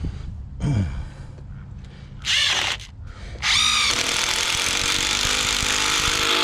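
Power drill run in two short bursts, then steadily for about three seconds, while setting Tapcon concrete screws.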